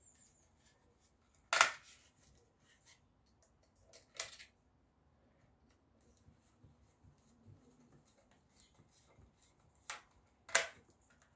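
Four sharp plastic clicks and rustles from a plastic cable gland being twisted and screwed tight on a white cable, the loudest about one and a half seconds in, with near quiet between.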